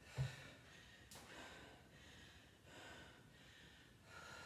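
A kettlebell set down on a rubber gym floor with one dull thud just after the start, then a few breaths as the lifter rests between sets of deadlifts.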